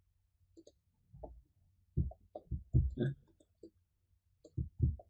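Computer mouse clicking: a run of short, sharp clicks, bunched between about two and four seconds in and again near the end.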